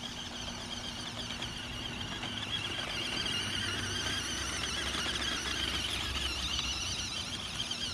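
Stock electric motor and gearbox of a 1997 Radio Shack Enforcer RC monster truck whining as it drives over wood mulch in low gear. The high whine wavers up and down with the throttle and is a little louder in the middle.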